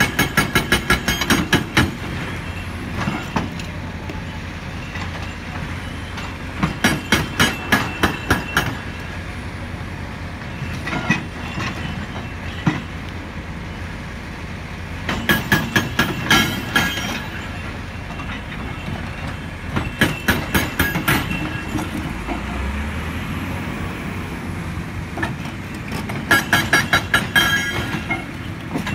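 Excavator-mounted hydraulic breaker hammering rock in bursts of rapid blows, about four a second, each burst lasting about two seconds, five times, with a few single knocks between. The excavator's diesel engine runs steadily underneath.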